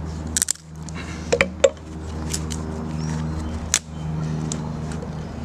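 Sharp wooden knocks and clacks of a Ray Mears bushcraft axe splitting thin sticks on a log: one knock, then a quick cluster of three, then another knock later. A steady low engine drone, a plane overhead, runs underneath.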